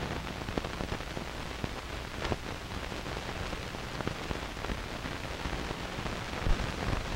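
Steady hiss and crackle of an aged film print's soundtrack playing with no music or narration, with scattered small pops and clicks.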